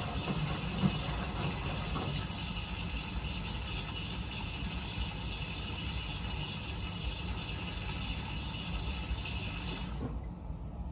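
Miele W Classic front-loading washing machine running mid-cycle on a 40 °C colour wash. A steady low hum carries a hissing, watery layer on top, which cuts off suddenly near the end, and there is a single knock about a second in.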